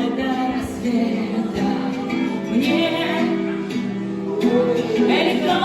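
Music playing: a song with guitar-like plucked strings and a singing voice.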